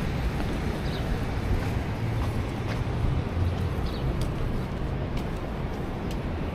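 City street ambience: a steady low rumble of traffic, with a few faint clicks.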